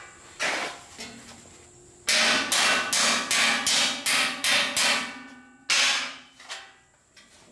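Hammer blows on a sheet-steel panel, each strike ringing. A couple of strikes come first, then a quick run of about a dozen blows at roughly four a second starting about two seconds in, then a few more spaced strikes.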